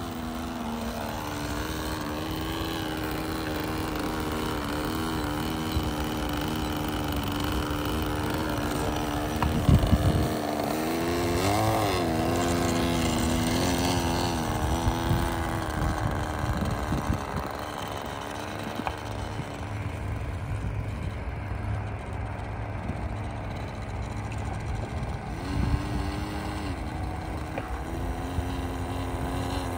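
Small two-stroke O.S. 15 LA glow engine of an RC plane running at low throttle while the plane taxis. Its pitch rises and falls briefly about twelve seconds in and again near the end. A low thump comes about ten seconds in.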